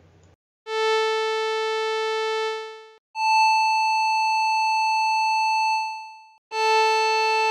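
Synthesized demonstration tones for an octave: a tone rich in overtones at the root pitch of 440 Hz, then a tone an octave higher at 880 Hz with only a few overtones, each held for about two to three seconds. Near the end a tone at the lower pitch sounds again.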